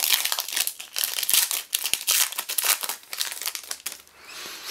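Crinkly plastic wrapper of a Panini Donruss basketball card pack being torn open and crumpled by hand. It is loudest in the first three seconds, then trails off into fainter rustling.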